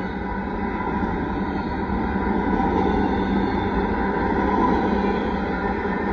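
Intermodal freight train rolling past, a steady rumble of wheels on rail that grows slightly louder through the middle.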